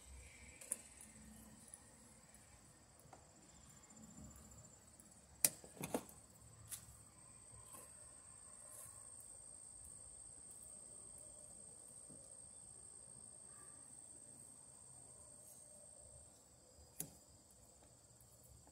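Faint sharp clicks of hand cutters working electrical cable, the loudest about five seconds in and another near the end, over a steady high insect drone.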